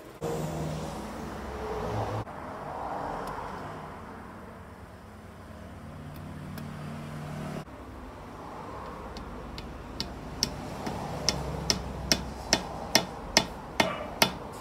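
A steady machine hum, then over the last few seconds a run of sharp metal taps, about two a second: a hammer driving a turned metal plug into the oil passage of a Honda PCX crankcase.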